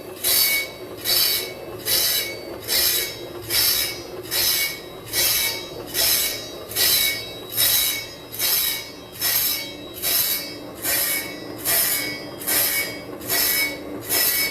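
Circular saw blade resharpening machine grinding the blade's teeth one after another: a high grinding rasp that repeats evenly, a little under twice a second, as each tooth passes under the wheel.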